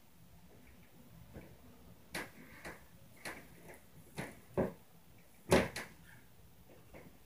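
Footfall thumps and knocks from the apartment upstairs, heard through the ceiling: about half a dozen irregular impacts over a few seconds, the loudest a quick pair toward the end.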